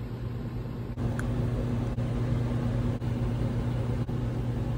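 Steady hum of running electric machinery with a constant low tone, dipping briefly about once a second.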